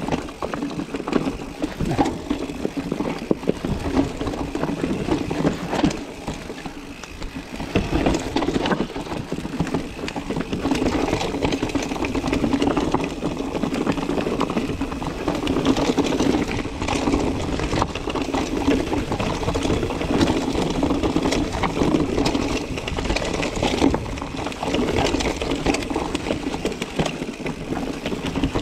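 Mountain bike ridden over a rough trail: steady tyre and wind noise with frequent knocks and rattles from the bike throughout.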